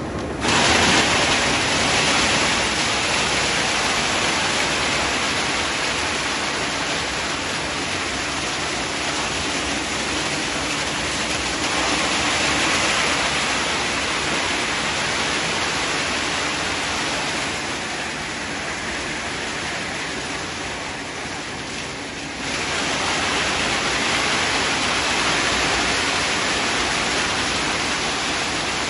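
PET bottle label remover machine running with a load of plastic bottles churning inside its studded drum: a dense, steady clatter-hiss. It jumps louder about half a second in as bottles are tossed into the hopper, eases a little later on and steps up again about 22 seconds in.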